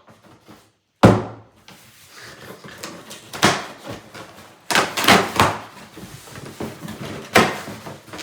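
A cardboard shipping box being opened and handled by hand: a sharp thump about a second in, then irregular scraping and rustling of cardboard with several louder knocks.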